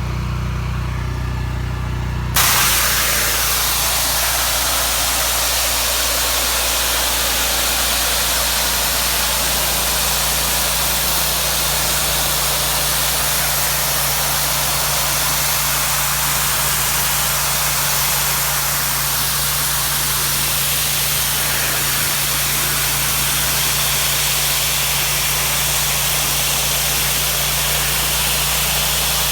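A pressure washer running with a steady hum. About two seconds in, the spray starts with a sudden loud hiss: a 3,000 PSI jet through a wide tip washing the base of a brick wall. It then keeps hissing evenly over the hum.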